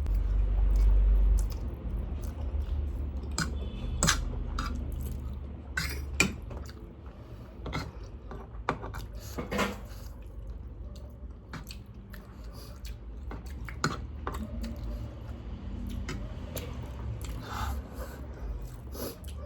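Eating spicy instant noodles: utensils clicking against a bowl, scattered sharp clicks, with chewing between them. A low rumble is loudest in the first second and a half.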